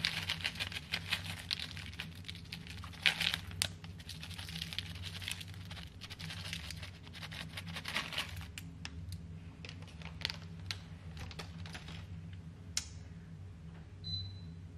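Plastic packet of dried bay leaves crinkling as it is handled and shaken out over a pot, the dry leaves rustling out of it; irregular crackles for about twelve seconds, then thinning out. A steady low hum runs underneath.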